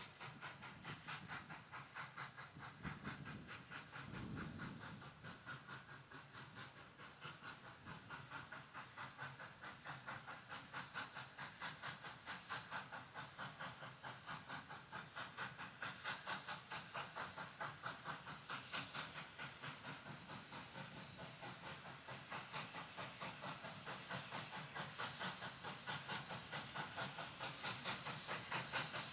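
Victorian Railways K class 2-8-0 steam locomotive approaching under steam, its exhaust beating in a steady rhythmic chuff that grows gradually louder as it nears.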